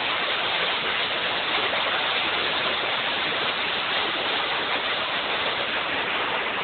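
Bridal Veil Falls: the steady, unbroken rush of a large waterfall's water plunging onto rocks below.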